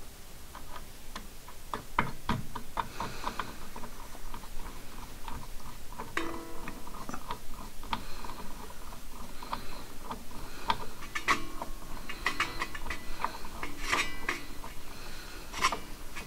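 Threaded brass studs being screwed by hand into a lathe DRO scale's mounting bracket: irregular small metallic clicks and clinks, several a second at times, some ringing briefly.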